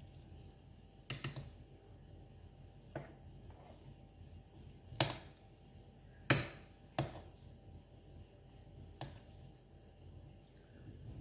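A metal fork clicking against a plate: about six sharp, separate clicks a second or two apart, the loudest a little past the middle.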